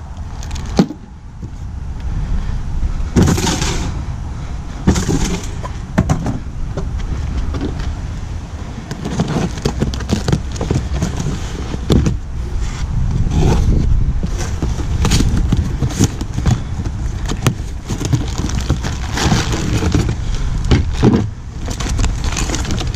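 Cardboard box and plastic-bagged brake parts being handled and unpacked: repeated rustling, crinkling and small knocks over a steady low rumble.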